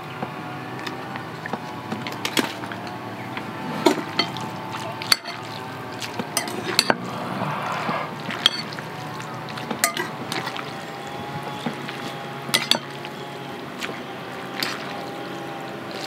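Thick sauce poured from a plastic bag onto thick ramen noodles, then the sauced noodles being stirred and tossed in a ceramic bowl with metal utensils: wet, sticky mixing with sharp clinks of metal on the bowl.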